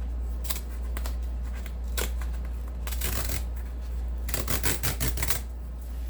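Cardboard vinyl-record mailer box being handled and pried open by hand: scattered taps and scrapes, a longer rustle about three seconds in, then a quick run of crackling clicks a little past four seconds, over a steady low hum.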